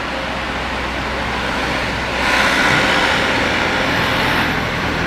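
Road traffic: a steady low engine hum, with the rushing noise of a vehicle passing that swells about two seconds in.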